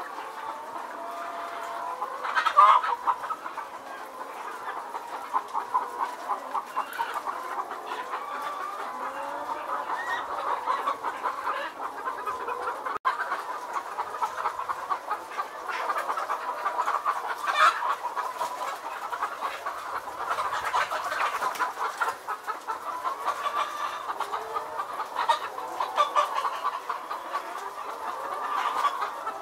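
A large flock of caged chickens clucking and calling all at once in a dense, steady chorus, with a few louder squawks standing out, one a few seconds in and another about halfway through.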